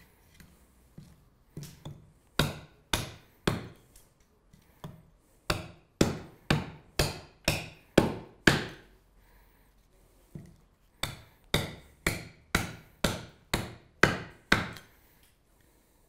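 Carving axe chopping into a green alder spoon blank held on a wooden chopping block. A run of sharp chops about two a second, then a short pause, then a second run of chops that stops shortly before the end.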